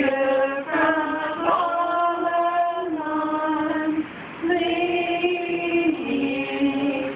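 Women and children singing a song together, unaccompanied, in long held notes, with a short break about four seconds in.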